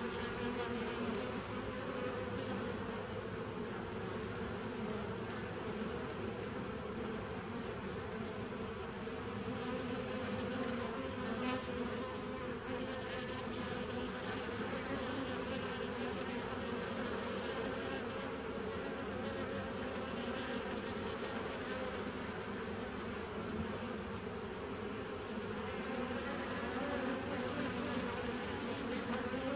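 Honeybees of a nucleus colony buzzing steadily as they fly in and out of the hive entrance, a continuous hum.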